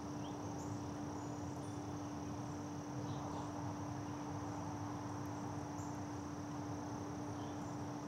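Backyard ambience: a steady high-pitched insect drone and a steady low hum over a soft haze, with a few faint short high chirps scattered through.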